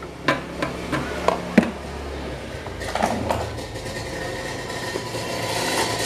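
A handful of light clicks and knocks as the blade hub of a standing fan is handled, followed over the last few seconds by a steady noise that slowly grows louder.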